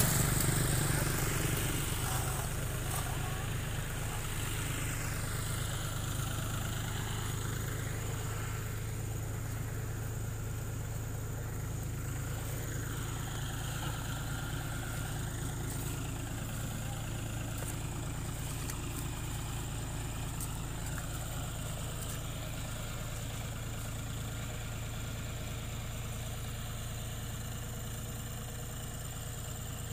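Engine of a heavy earthmoving machine digging a ditch, running steadily at a low, even hum.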